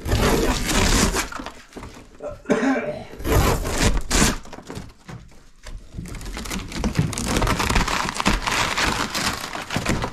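Thin wood-grain wall paneling being pried and torn off the wall, tearing and cracking in three long stretches with short pauses between.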